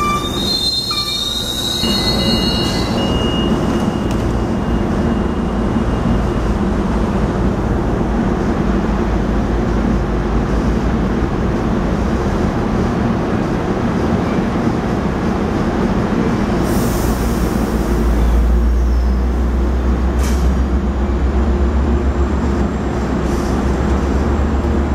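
Metrolink bilevel passenger coaches rolling past close by: a steady rumble of wheels on rail, with high wheel squeal in the first few seconds. A deep low hum joins the rumble about 18 seconds in and holds to the end.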